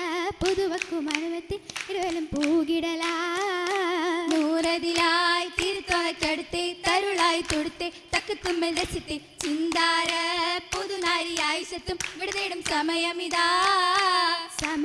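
Female voices singing a Mappila oppana song with rhythmic hand clapping, the melody wavering over a steady held note.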